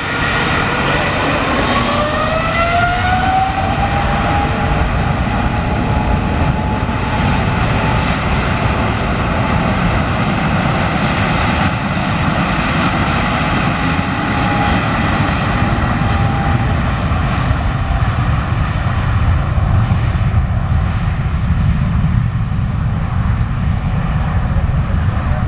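Boeing 777-200ER's twin GE90 turbofans at high power on a departure. A whine rises in pitch over the first few seconds as the engines spool up, then holds under a steady, loud jet roar and rumble. The high whine fades gradually toward the end.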